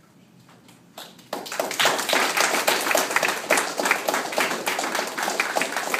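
A small group applauding: many hands clapping at once, starting about a second in and carrying on.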